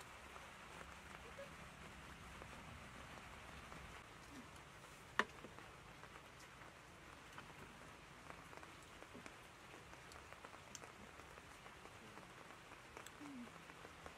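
Near silence: a faint, steady outdoor hiss, with a single sharp click about five seconds in and a few fainter ticks.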